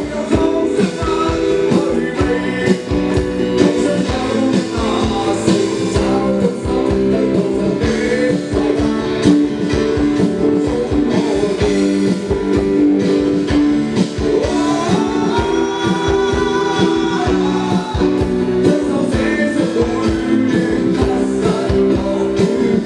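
A live rock band playing, with drum kit, electric and acoustic guitars and keyboard, and a voice singing over them; the drums beat steadily throughout.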